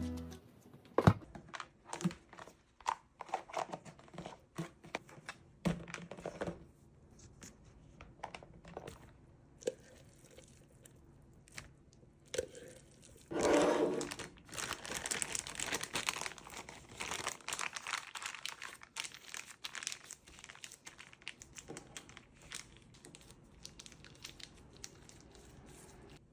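Plastic packaging crinkling and rustling as it is handled, with many scattered light clicks and taps; the loudest rustle comes about halfway through.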